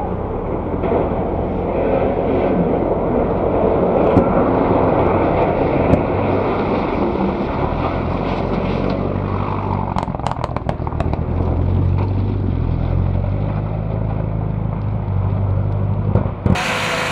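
Mitsubishi Lancer Evolution rally car's turbocharged four-cylinder engine running hard as the car slides through a loose-surface corner, with tyre and gravel noise. A quick series of sharp cracks comes about ten seconds in, and the sound changes abruptly near the end.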